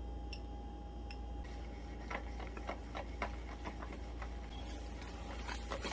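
Wire whisk stirring thick cornmeal batter in a plastic bowl, knocking against the bowl in short, irregular clicks that come thicker from about two seconds in.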